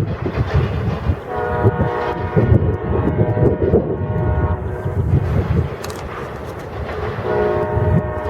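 Locomotive air horn sounding a chord of several notes: one long blast starting about a second in, then another beginning near the end. A steady low rumble of the train runs underneath.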